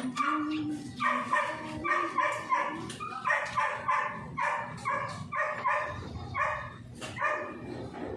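A dog barking in a rapid run of short, high-pitched yaps, about two or three a second.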